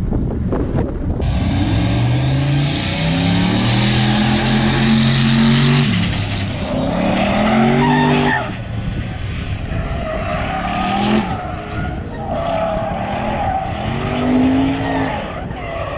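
A performance car's engine revving hard as it accelerates, its pitch climbing and dropping back with each gear change. In the second half its tyres squeal through corners while the engine rises and falls between them.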